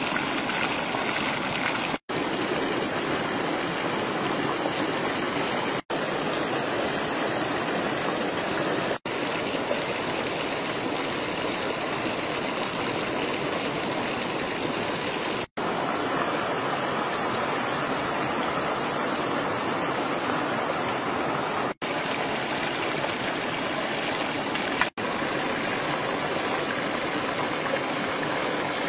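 Steady rushing of running water, like a stream, broken by six short dropouts.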